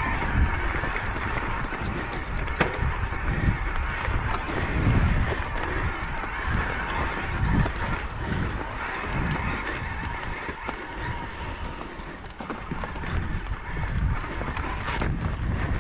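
Mountain bike climbing a loose, rocky trail: tyres crunching over stones with scattered clicks and knocks, and wind buffeting the microphone in uneven low gusts.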